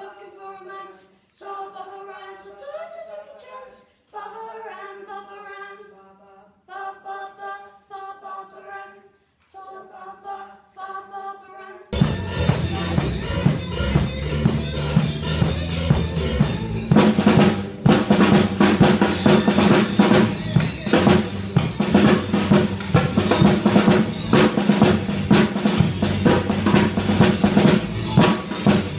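Voices singing in short phrases, then, about twelve seconds in, a sudden cut to a drum kit played loudly: a busy beat on snare and bass drum with cymbals.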